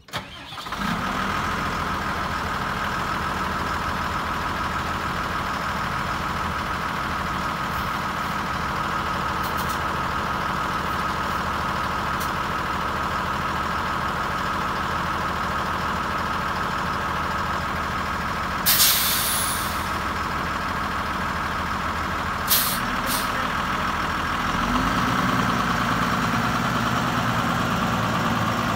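A Gradall G3WD wheeled excavator's diesel engine starts and settles into a steady run, with a steady whine over it. About 19 s in there is a one-second blast of air hiss, and two short hisses follow about 22 s in, typical of the air brakes. Near 25 s the engine rises in pitch and grows louder as the machine gets under way.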